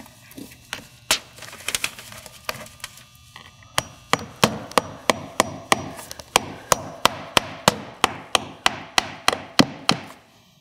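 Hammer tapping a siding nail through the nailing slot of a vinyl corner post into the wall: a few scattered knocks, then from about four seconds in a steady run of quick strikes, about three a second.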